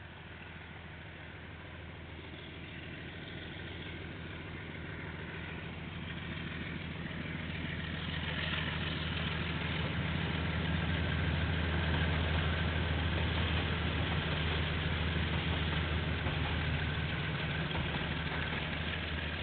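A KiwiRail diesel train approaching and passing: the locomotive's steady low engine drone builds for about twelve seconds, joined by a wider rolling rumble, then eases slightly as the train goes by.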